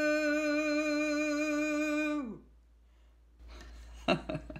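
A woman's unaccompanied singing voice holding the song's final note with a slight vibrato, then letting it slide down in pitch and die away a little after two seconds. After a short pause, a brief breathy laugh near the end.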